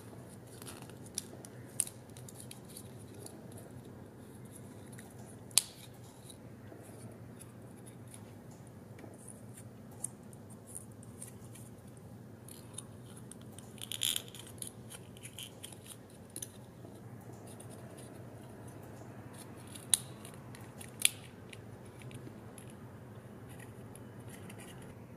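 Stiff printed card being folded and handled, its paper tabs pushed into slots: soft crinkling and scratching with sharp clicks now and then, over a faint steady low hum.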